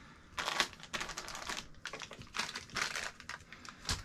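Packaging being handled and pulled about, crinkling and crackling in several irregular spurts.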